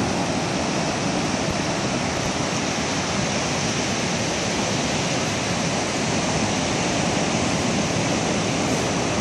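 Pacific Ocean surf breaking along a sandy beach: a steady rushing noise with no separate wave crashes standing out.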